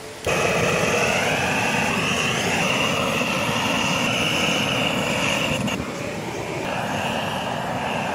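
A small motor or engine running with a steady high whine that rises in pitch over the first two seconds, then holds; the sound changes abruptly about six seconds in.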